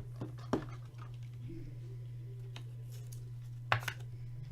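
Trading cards being handled on a table: a few light taps and clicks, the loudest pair near the end, over a steady low hum.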